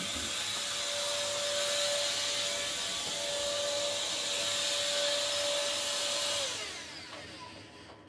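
Electrolux Ergorapido cordless stick vacuum running at full power, a steady motor whine over the rush of suction air. About six and a half seconds in it is switched off: its pitch falls and the sound dies away as the motor spins down.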